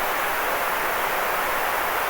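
Steady white noise: an even, unchanging hiss, strongest in the middle range with little bass.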